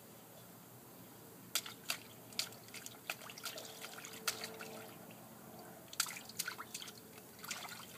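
Small splashes and drips of water in a shallow inflatable kiddie pool as a baby slaps the water. They come in irregular clusters of short splashes, starting about a second and a half in.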